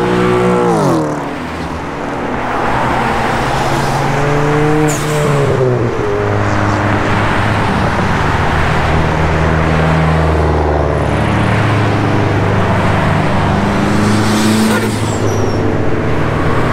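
Car engine running under way, its pitch dropping in the first second or so, rising and falling again around four to six seconds in, then holding fairly steady over road noise.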